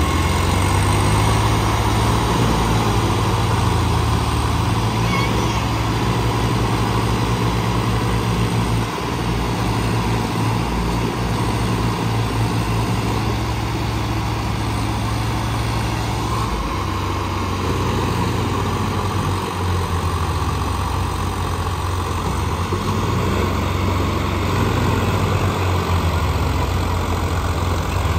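Diesel tractor engine running loud and steady, its note shifting about halfway through.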